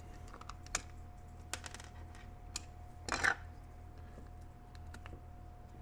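Scattered light clicks of hard plastic as the handle halves of a Boss snowplow handheld controller are squeezed apart and handled on a table. The loudest sound is a short scrape about three seconds in, over a faint steady hum.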